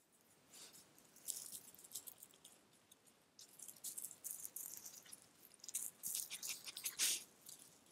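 Raccoons rustling and crackling through dry grass and leaf litter close by, in irregular bursts of scratchy sound, loudest about seven seconds in.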